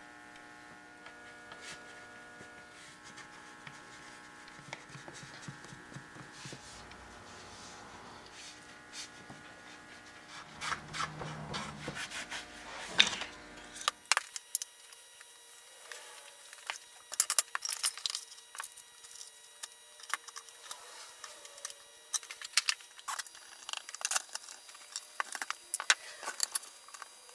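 Faint workshop hum with soft handling noises, then from about halfway many short metallic clicks and knocks as metal bar and pipe clamps are fitted and tightened to hold a glued split in a teak tray.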